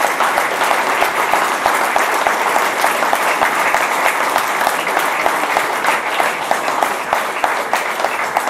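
Audience applauding: many hands clapping together in a loud, steady, dense clatter.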